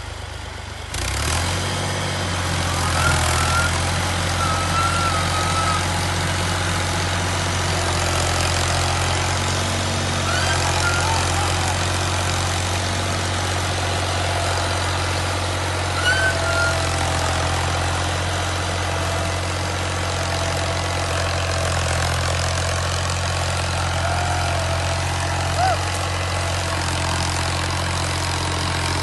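Heavy diesel engine of farm machinery running steadily, getting louder about a second in and then holding an even level. Faint wavering higher calls sound over it now and then.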